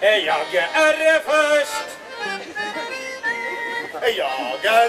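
Live band music with a man's voice in short sung or vocalised phrases in the first two seconds and again near the end, and held reedy melody notes in between.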